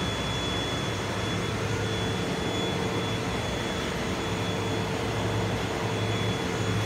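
Steady drone of a ship's engine-room machinery running, an even mechanical noise with a constant low hum and a faint high whine over it.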